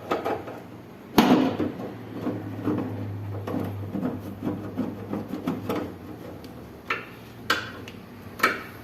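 Clicks, knocks and rubbing as a window air conditioner's screws and metal parts are handled and fitted back in place, with a loud knock about a second in and three sharp clicks near the end.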